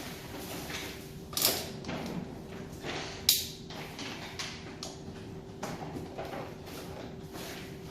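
Plastic parts of a stand fan being handled and fitted together during assembly: irregular knocks and clicks, the sharpest click about three seconds in, over a steady faint hum.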